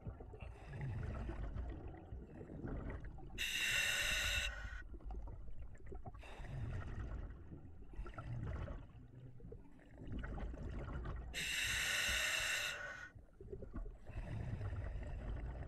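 A scuba diver breathing slowly through a full-face mask's regulator. Twice, about eight seconds apart, a loud hiss of an exhalation venting out as bubbles, with quieter inhalations through the demand valve between.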